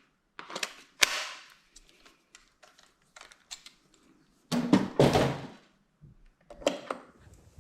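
Tools being handled: a few sharp clicks and knocks, loudest in a short cluster past the middle.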